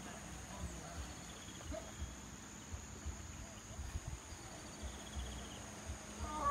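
Open-field ambience with insects trilling faintly and low irregular thumps from the handheld phone being carried. A short call sounds from a distance near the end and is the loudest moment.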